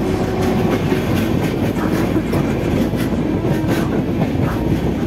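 Passenger train running at speed, heard at the open side of a moving coach: a steady loud rumble of wheels on track, with a few clacks from the wheels over rail joints.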